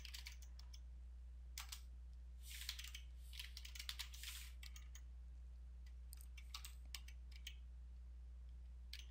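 Faint typing on a computer keyboard: several quick runs of key clicks in the first half, a few scattered clicks later, over a steady low hum.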